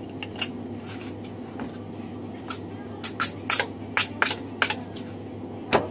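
Butcher's knife cutting and scraping along a lamb shoulder bone while deboning it, giving a run of short, sharp clicks and scrapes that come thicker in the second half, over a steady low hum.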